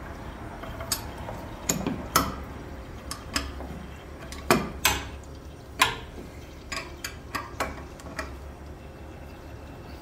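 Metal tools clinking and knocking on a cast-iron strainer housing as its two bolts are worked loose: about a dozen sharp, irregular clinks, the loudest about four and a half and six seconds in, over a steady low hum.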